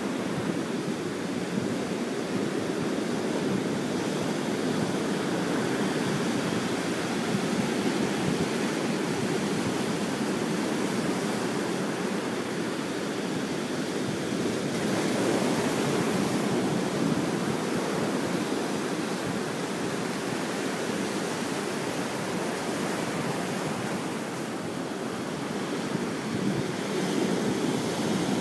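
Ocean surf breaking and washing around a rock jetty: a steady rush of waves that swells a little about halfway through and again near the end.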